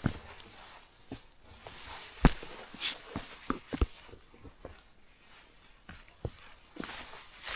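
Footsteps of a hiker walking on a forest track: irregular soft thuds and crunches, with a sharper knock about two seconds in.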